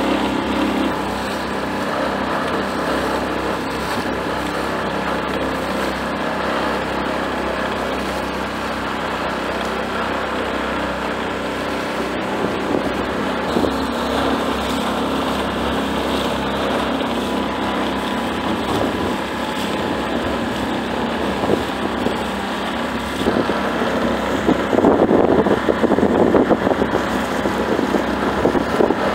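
6 HP Tohatsu outboard motor running steadily under way, with water splashing against the hull and wind on the microphone. The rushing of water and wind grows louder and more uneven over the last few seconds.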